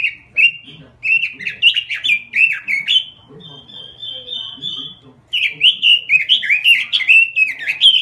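Caged Pekin robin (red-billed leiothrix) singing. It gives loud runs of rapid warbling notes, with a softer, even trill in the middle before another loud run.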